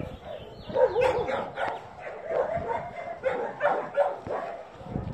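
Dogs barking and yipping: a quick run of short, high-pitched barks, several a second.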